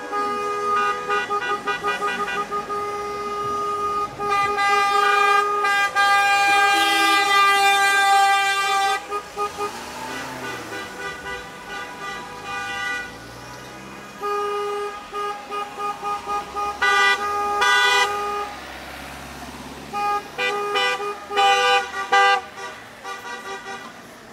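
Car horns honking: long held blasts through the first half, a quieter stretch, then runs of short toots near the end.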